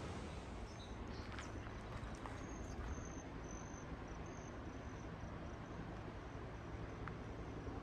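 Quiet outdoor ambience: a steady background hiss with a series of faint, short, high-pitched chirps in the first half.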